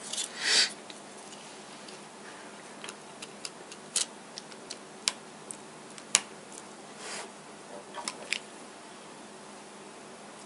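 A Nexus 5's plastic inner back cover being fitted and pressed down onto the phone. There is a short scrape of plastic near the start, then a series of sharp plastic clicks as its clips snap into place, the loudest about six seconds in.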